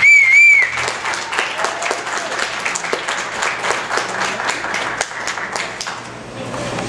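A loud two-note whistle of about half a second, then audience applause with separate hand claps heard in it, fading slightly near the end.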